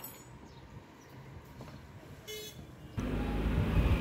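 Quiet background with one short, high horn toot about two and a half seconds in. Near the end the background jumps suddenly to a louder low rumbling noise.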